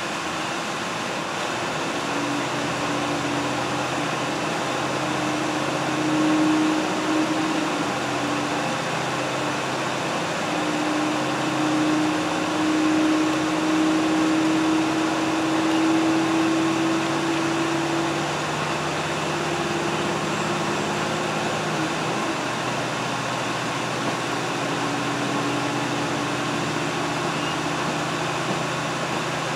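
Diesel train running along the track, heard from inside the car: a steady rumble and hiss of the wheels on the rails with a low engine drone whose pitch shifts a few times.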